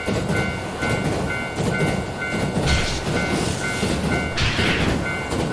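Japanese level-crossing warning bell ringing its repeating two-tone "kan-kan" about three times a second, over the rumble and clatter of a passing train. Two short hissing surges come through about halfway and again near the end.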